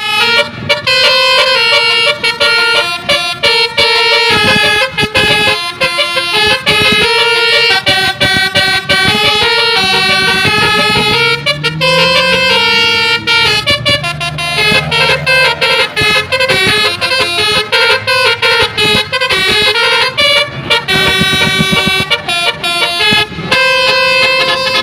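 Bus 'telolet' horn: a multi-tone air horn playing a fast melodic tune, one held note after another, with some sliding pitches around the middle.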